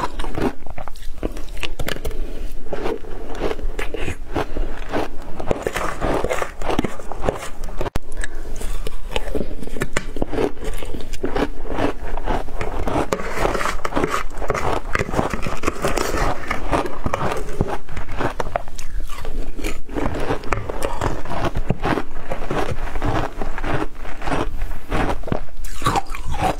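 Matcha-coated ice being bitten and crunched in the mouth: a dense, unbroken run of cracks and crackles that drops out briefly about eight seconds in.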